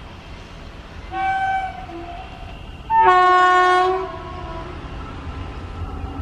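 WAP-7 electric locomotive's horn sounding twice: a short blast about a second in, then a longer, louder blast about three seconds in. Under it the approaching train's low rumble grows near the end.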